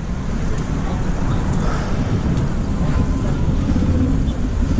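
Steady rushing noise of a bicycle riding through city traffic: wind on the microphone and the running of nearby cars.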